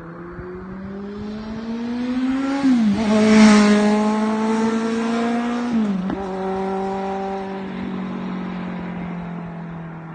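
Kawasaki Z900 inline-four motorcycle accelerating past: the engine note climbs, drops sharply as it shifts up about three seconds in, climbs again and shifts up once more about six seconds in. It is loudest just after the first shift as it passes, then fades as it pulls away.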